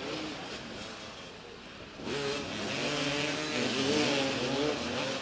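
Several motoball motorcycles' engines running and revving at once, their pitches rising and falling against each other, getting louder about two seconds in.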